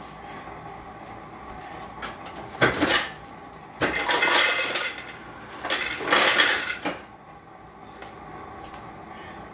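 Three bursts of clattering noise over a low steady background: a short one about two and a half seconds in, then two longer ones of about a second each.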